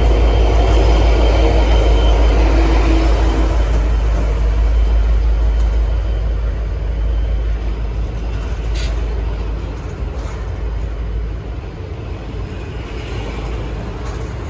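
N class diesel-electric locomotive's EMD two-stroke V12 engine giving a deep rumble as it pulls away. The rumble grows fainter after about eight seconds as the locomotive moves off, with a single sharp click near nine seconds.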